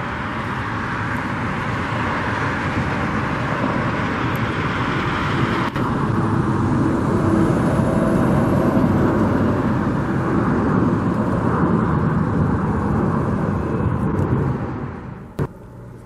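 Motor vehicle noise: a steady rumble that swells over several seconds, holds, then drops away sharply near the end.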